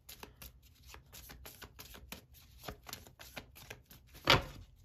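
Tarot cards being shuffled by hand: a quick run of soft, crisp card clicks, several a second, with one louder snap about four seconds in.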